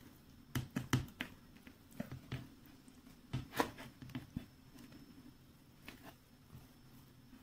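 Grated beetroot being tipped into a stainless-steel pot of vegetables: a string of faint soft knocks and light scrapes, most of them in the first half.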